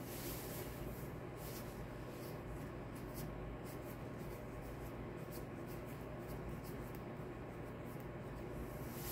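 Faint scratchy rubbing and small ticks of fingers braiding hair, working the end of a cornrow, over a steady low hum.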